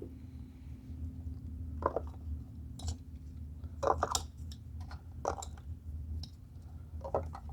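Short plastic clicks and knocks, about six spread irregularly, as new ignition coil packs are handled and dropped into the spark plug wells of a Mini Cooper R56 engine, over a steady low hum.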